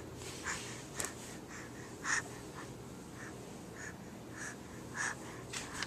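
Baby giggling in a string of short, breathy bursts, about one every half second to second, with a sharp click about a second in.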